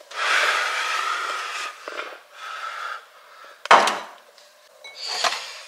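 Rubbing, rustling handling noise, then one sharp knock about two-thirds of the way in as a glass bowl is set down on a kitchen countertop, with a few light clicks after.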